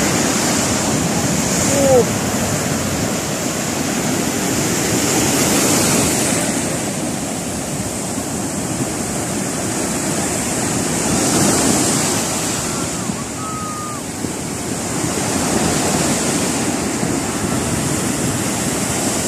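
Surf breaking and washing up a sandy beach: a steady rush of foaming water that swells and fades about every five seconds as each wave comes in.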